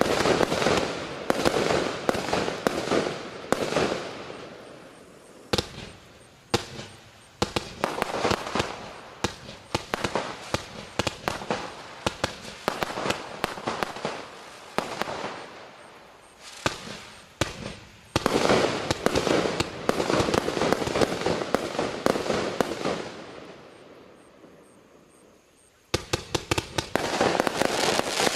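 Klasek C50MO Ogre 50-shot fireworks cake firing: rapid strings of launches and bursts with crackling stars between them, in several volleys with short lulls. Near the end it goes quiet for about two seconds, then a last fast volley starts.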